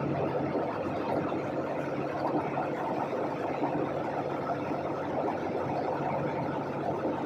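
Steady cabin noise of a jet airliner in flight: an even rushing of engines and airflow with a low steady hum underneath.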